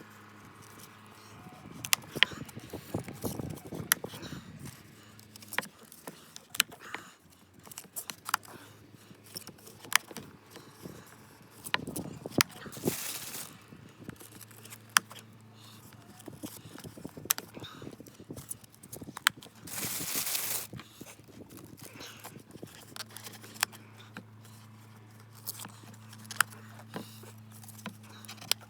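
Handling noise as plucker parts are worked by hand: scattered sharp clicks and knocks at an irregular pace, over a low steady hum that drops out and returns, with a few brief hissy bursts.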